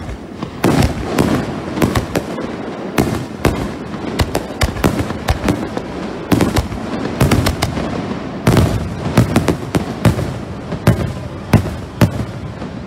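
Aerial firework shells bursting in a rapid barrage, heard close to the launch site: loud, sharp bangs several times a second, overlapping over a continuous rumble.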